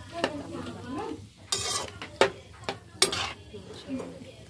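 A ladle stirring vegetables in coconut milk in a metal wok, scraping and knocking against the pan several times.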